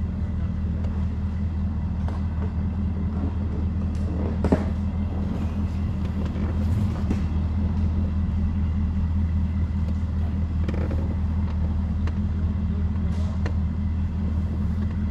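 Bass boat's outboard motor running at idle speed, a steady low rumble, with one sharp click about four and a half seconds in.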